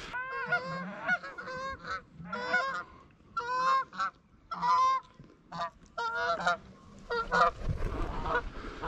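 Canada geese honking: many short, rising honks in quick clusters with brief gaps between them, and a low rumble near the end.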